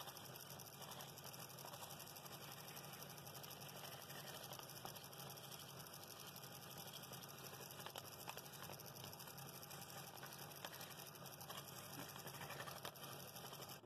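Scroll saw running faintly and steadily, its blade cutting along a pattern line in a thick wood blank, with a low motor hum.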